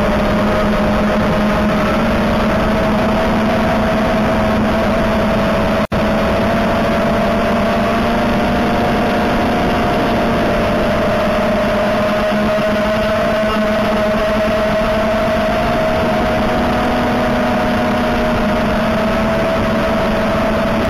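Eachine Wizard X220 racing quadcopter's brushless motors and propellers buzzing steadily in flight, the pitch wavering slightly with throttle. The sound cuts out for an instant about six seconds in.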